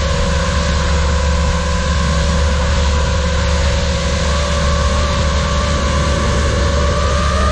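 FPV quadcopter's motors and propellers whining at a steady throttle, heard through the onboard GoPro over a deep rumble of wind and frame vibration. The pitch edges slightly higher in the second half.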